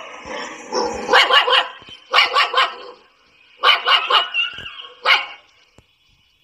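A dog barking in quick runs of several barks each, four runs in all with short pauses between them.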